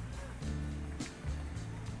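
Background music with bass notes and a regular beat of sharp percussion hits.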